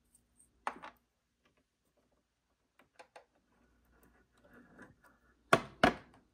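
Light clicks and taps of a bobbin and small parts being handled on a sewing machine's plastic bed and metal needle plate, with a faint rustle midway. Two sharp clicks near the end are the loudest sounds.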